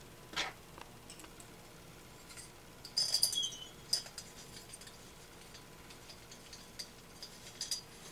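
Small metallic clicks and clinks of a steel Allen key fitting into and turning the cylinder bolts of a two-stroke engine, with a brief ringing clink about three seconds in and light ticks near the end.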